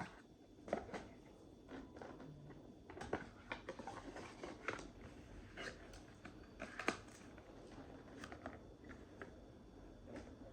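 Scattered light clicks and taps of small objects being handled, irregular and quiet, with a sharper knock about seven seconds in.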